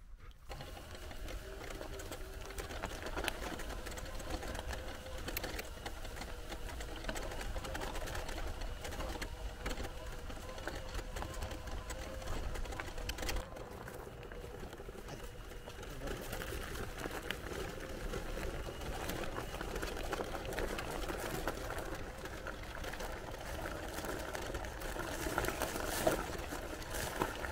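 Electric power wheelchair's drive motors running with a steady whine while the chair rolls over grass and a gravel track, with scattered small knocks from the rough ground.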